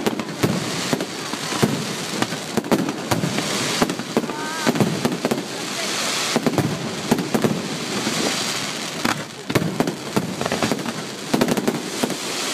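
Aerial fireworks bursting in quick succession: many sharp bangs, irregularly spaced, over a steady crackle of burning stars.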